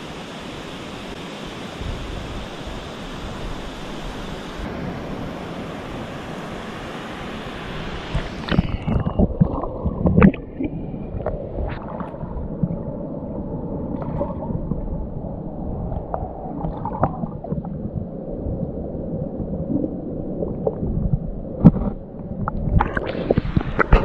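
Steady rush of river water pouring over a weir, heard at the water's surface. About eight seconds in the sound turns muffled as the microphone goes underwater, leaving gurgling water with scattered knocks and splashes.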